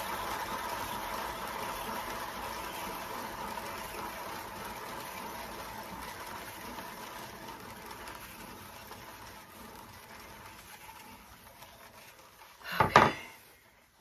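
Turntable spinning a 12-inch round canvas loaded with wet acrylic paint, whirring steadily and fading as it slows down. A single loud knock comes near the end.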